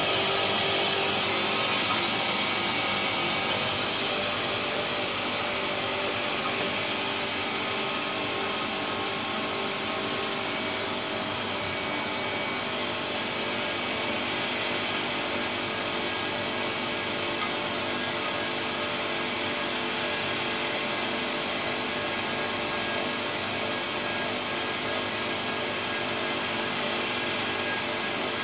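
Pilous ARG 250 metal-cutting bandsaw running steadily, its motor and blade drive giving a continuous hum. It is somewhat louder for the first few seconds while the blade is cutting through a bundle of steel bars.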